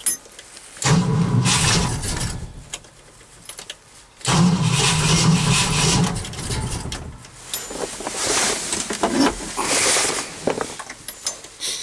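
Engine cranking on the starter in the cold without catching, in two bursts, a short one about a second in and a longer one about four seconds in. This is a cold no-start after a night well below freezing.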